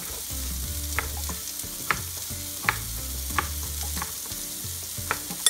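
Food sizzling in a frying pan, with a utensil clicking sharply against the pan several times as it is stirred.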